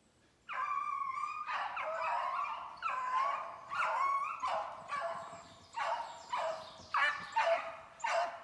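Beagles baying as they run a snowshoe hare's track: one long drawn-out call about half a second in, then a steady string of shorter bawling calls about two a second.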